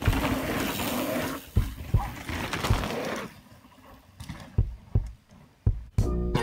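Outdoor rushing noise, like wind on the microphone, for the first three seconds, then a quieter stretch broken by a run of short, dull low thumps.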